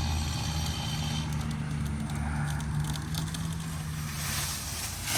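An engine idling steadily while the cut tree leans over, with faint scattered crackling of wood, then at the very end a sudden crash as the tree hits the ground.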